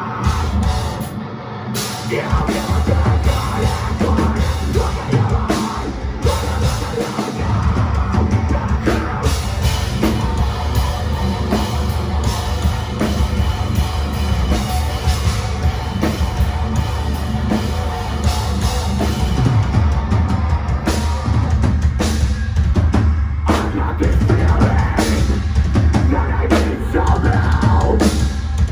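Metalcore band playing live at full volume: down-tuned distorted guitars, bass and drums. The heavy low end stops briefly a second or two in and again around seven seconds, in a stop-start riff.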